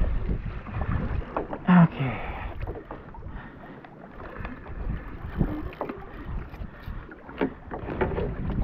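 Wind buffeting the microphone over choppy water lapping against a kayak hull, with scattered small knocks and splashes and a short louder thump about two seconds in.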